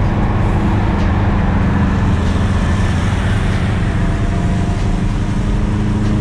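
Car engine running steadily: a loud, even low hum with a few steady tones, a faint higher tone joining about four seconds in.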